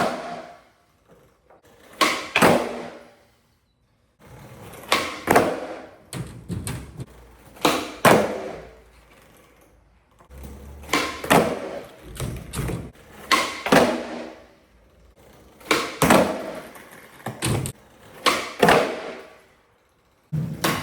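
Skateboard flip-trick attempts on flat ground: sharp pops of the tail and clacking landings of the board, with wheels rolling after them, repeated about every two to three seconds.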